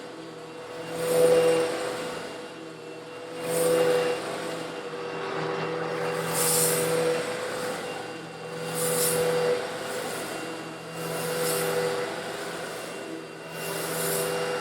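Old Eureka vacuum cleaner running steadily while sucking up small coarse stone granules, its motor hum swelling with a hissing rattle of granules about every two and a half seconds as the nozzle passes over them.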